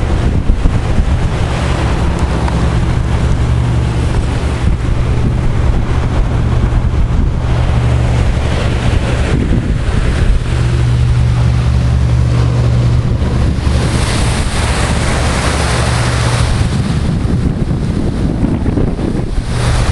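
Strong wind buffeting the microphone over the rush and hiss of the sea breaking under the bow of a sailing ship. The hiss of water swells up for a couple of seconds about two-thirds of the way through.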